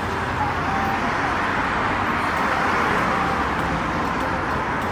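Road traffic noise: the tyre and engine rush of a passing vehicle swells towards the middle and then fades.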